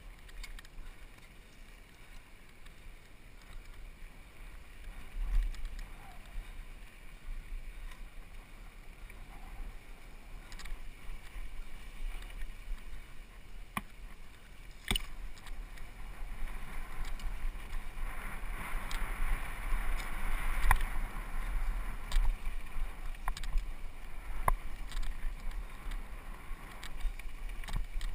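Wind buffeting the microphone as a downhill mountain bike descends a dusty dirt trail, growing louder as speed builds. Sharp knocks and rattles from the bike hitting bumps, the loudest about five seconds in and around the middle.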